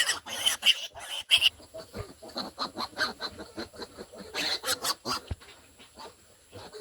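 Piglets squealing and grunting in many short, repeated calls that thin out near the end, as they are caught and given iron injections.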